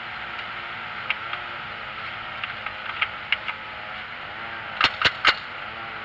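Small clicks and knocks from a hand working a part in a truck's engine bay, then three sharp, loud clicks in quick succession near the end, over a steady background hiss.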